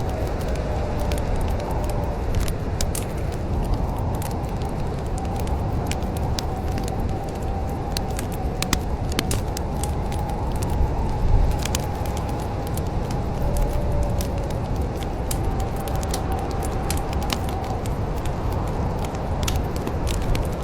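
Wood fire burning in a fireplace: a steady low rush of flames with frequent sharp crackles and pops. A faint wavering whistle runs in the background.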